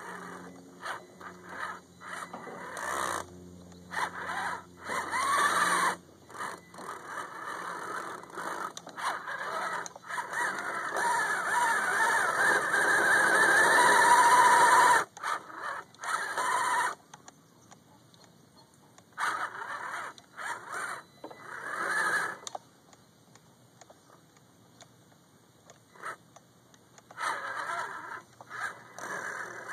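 Axial SCX10 RC crawler's electric motor and gear drivetrain whining in on-and-off bursts of throttle as it churns through mud, with one long run in the middle and short pauses later. The truck is running on a slipping rear axle.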